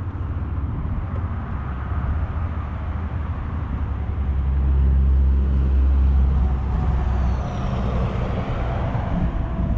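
Heavy truck traffic crossing the road bridge overhead: a steady low rumble that swells about halfway through.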